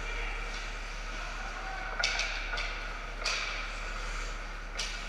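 Ice hockey play at the net: skate blades and sticks scraping and clacking on the ice in a few sharp, short scrapes, about two seconds in, twice more just after, and once near the end, over the steady hum of the rink.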